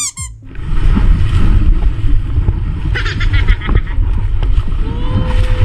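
Wind buffeting the microphone as a heavy low rumble aboard a paraw outrigger sailboat under way, starting about half a second in. A faint voice comes through near the end.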